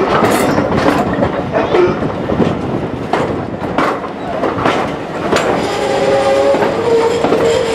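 Preserved GWR train behind pannier tank No 1369, running slowly along a station platform and heard from a carriage window: irregular clicks and knocks from the wheels and running gear. About five and a half seconds in, a steady high-pitched squeal starts and holds.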